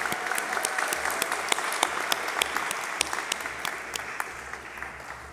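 Audience applauding, a dense patter of clapping that thins out and fades toward the end.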